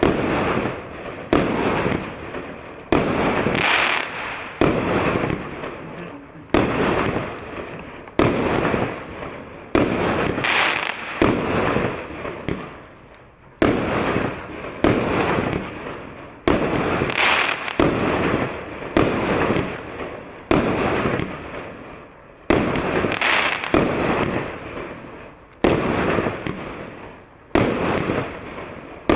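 Russkiy Feyerverk 'Moroz Voevoda' 36-shot, 1.2-inch firework cake (P7830) firing shot after shot. There is a sharp bang about every one and a half to two seconds, each fading out over a second or so before the next.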